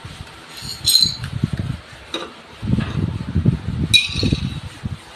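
Metal parts of a gas range being handled: two sharp, ringing metallic clinks, about a second in and again near four seconds in, with an uneven low rumble in between.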